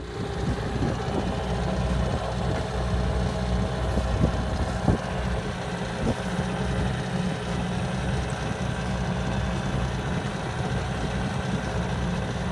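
Outboard motor idling with a steady low rumble, with a few light knocks in the middle.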